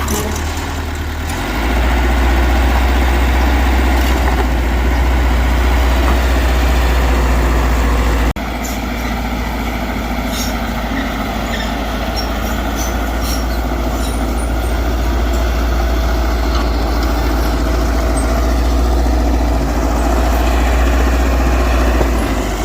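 Heavy diesel earthmoving machinery running steadily with a low rumble. The sound changes abruptly and drops a little in level about eight seconds in.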